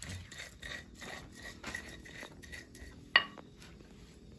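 Pestle grinding a wet spice paste in a mortar (Indonesian cobek and ulekan): rhythmic scraping and crushing strokes, about four a second. About three seconds in there is one sharp clink, the loudest sound.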